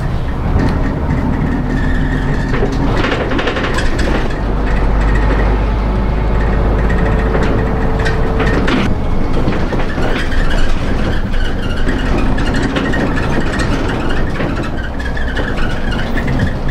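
Route bus running, heard from inside the passenger cabin: a steady low engine and road rumble with short rattles and knocks. A steady whine holds for a few seconds around the middle.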